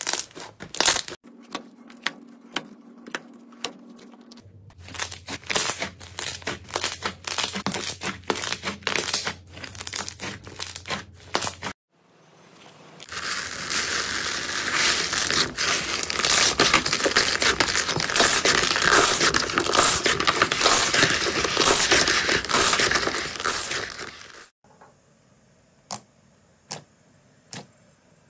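Slime worked by hand, in short clips one after another: sticky clicks and tearing as fluffy slime is pulled apart, then for about ten seconds a loud, dense crackle as a tub of bubble-filled slime is pressed and its air bubbles pop, and near the end a few wet clicks as fingers poke into glossy slime.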